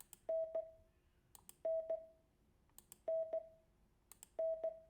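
Morse code letter N (dah-dit) sent as a steady mid-pitched tone, repeated four times about every second and a half, with a short click at the edges of the tones.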